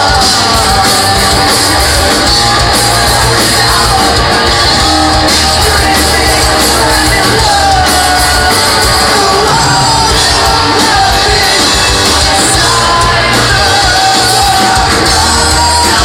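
A rock band playing live in a club hall: loud, dense guitars and drums with a singer's voice over them, unbroken throughout.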